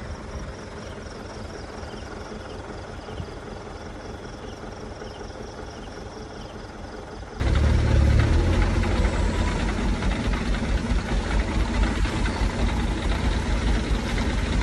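A quieter steady engine-and-background sound with faint regular ticking. About seven seconds in, it cuts suddenly to the louder, low, rumbling run of loaded palm-fruit trucks' diesel engines as they drive along a rough dirt road.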